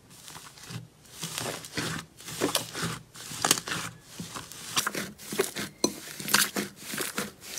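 Thick yellow slime squeezed, torn apart and kneaded by hand: a run of sticky crackles and pops in irregular clusters, sparse for about the first second and then thick and fast.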